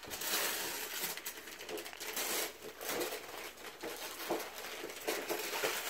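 Gift wrapping and packaging being handled and torn open, rustling and crinkling in an irregular run of crackles and light taps.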